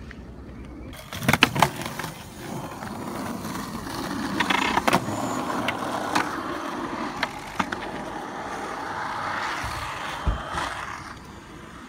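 Skateboard wheels rolling on a paved path, a steady rumble that swells and then fades near the end. Sharp clacks come through it, two loud ones about a second and a half in and several more scattered after.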